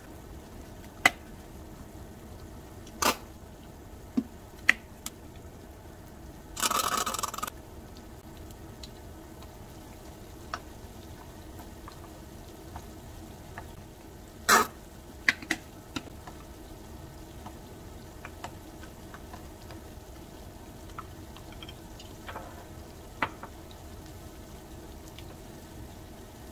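Kitchen handling sounds as sauces are mixed in small ceramic bowls: scattered clicks and knocks of bottles, caps and a spoon against the bowls and stone counter, with a short hissing burst about seven seconds in, such as a squeeze bottle sputtering. A faint steady hum runs underneath.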